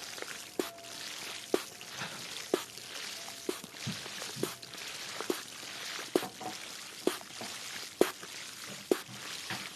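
Water trickling in a steady stream, with short sharp drips landing at irregular intervals, roughly once or twice a second.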